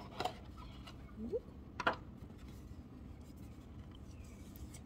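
Quiet handling of a cardboard presentation box as its lid is opened: two small clicks about a second and a half apart, the second the sharper, with a short rising sound between them, over faint room hum.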